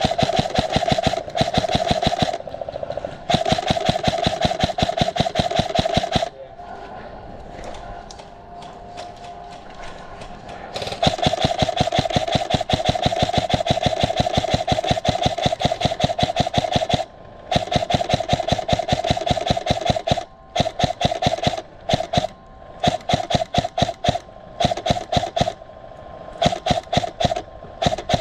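Krytac Trident MKII CRB-M airsoft electric gun firing on full auto: rapid, even mechanical clatter over a steady whine. Long bursts of several seconds come first, then break into many short bursts.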